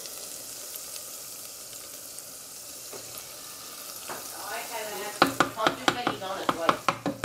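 Oil sizzling steadily as halved buttermilk biscuits deep-fry in a pot. From about five seconds in, a spoon turning them clicks and knocks against the pot in quick strokes, louder than the sizzle.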